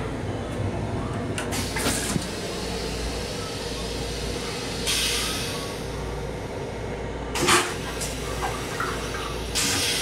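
Metro-North M7 railcar toilet flushing with several short hissing bursts of rinse water and air, the loudest brief one about three-quarters of the way through, over the steady noise of the moving train.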